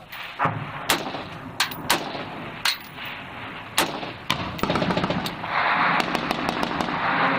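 Small-arms gunfire: several separate shots a second or so apart, then from about four and a half seconds in, a long stretch of rapid automatic fire that merges into a continuous rattle.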